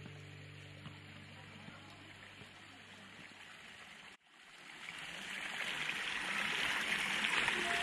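Background music fading out, then, after a brief gap, a small garden stream babbling, fading in and growing louder.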